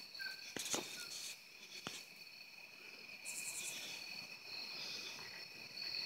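Crickets trilling steadily in a night-time insect chorus. A few faint clicks come in the first two seconds, and a short burst of rapid, very high pulses comes a little past halfway.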